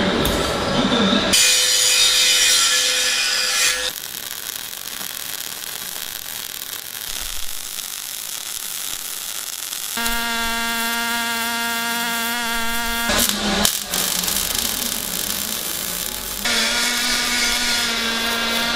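Power tools working metal in a string of short cuts: stretches of even hiss alternate with a motor running at a steady hum, broken by a couple of sharp clicks.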